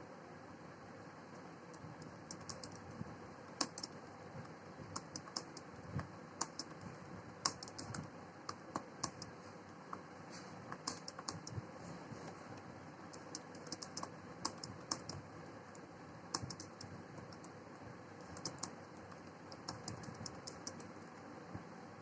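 Computer keyboard typing at speed: quick key clicks in uneven flurries with short pauses, over a faint steady hiss.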